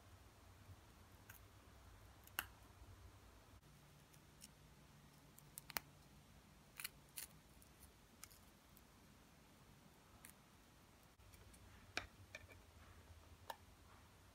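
Near silence with a few faint, crisp clicks and crackles scattered through: Oreo cookies being crumbled between fingers.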